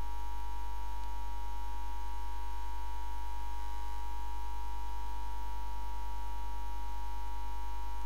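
Steady low electrical hum, like mains hum in the recording, with faint steady higher tones above it and no change throughout.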